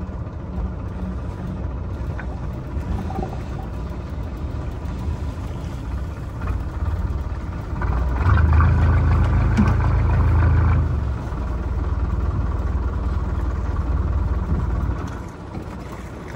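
Small fishing boat's engine running steadily, louder for about three seconds in the middle as it picks up.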